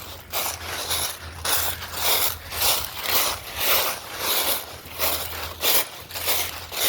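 Brisk footsteps on pavement with clothing rustling against the handheld phone's microphone, about two steps a second, over a low steady hum.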